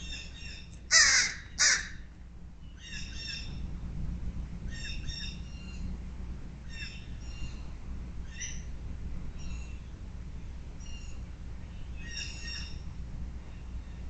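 A crow cawing twice, loudly, about a second in, followed by shorter, higher bird calls repeating roughly once a second.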